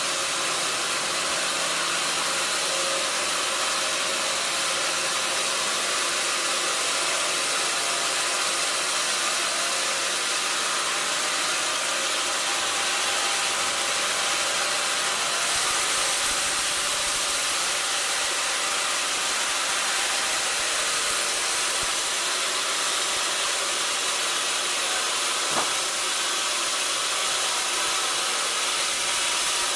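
Sawmill machinery running steadily: a constant high hiss over a faint mechanical hum, with one brief click near the end.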